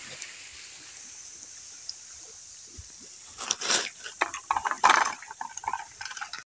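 Faint steady hiss of frying oil, then from about three seconds in, irregular rustling and scraping as crisp fried squid rings are tipped from a wire spider strainer onto a plate.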